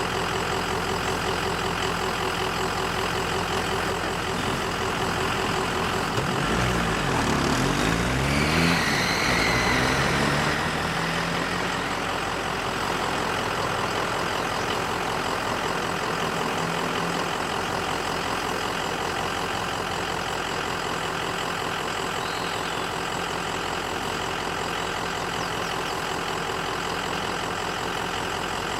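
Honey bee swarm buzzing: a dense, steady hum of many wingbeats. Between about 6 and 11 seconds in, a deeper engine-like drone swells and bends in pitch, then fades.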